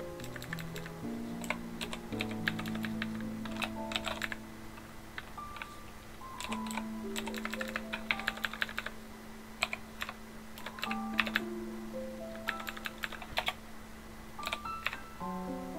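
Typing on a computer keyboard in short runs of keystrokes with pauses between them, over background music with sustained notes.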